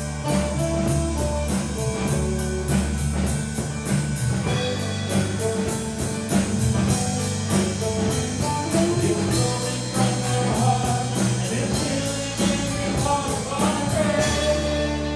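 Rock music with a steady drum beat over bass and melodic lines; the drum strokes drop out near the end.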